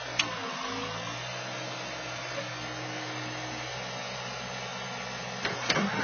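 New Holland skid steer's diesel engine running steadily while the machine sits bogged down in mud. A few sharp metallic clanks come just after the start and again near the end.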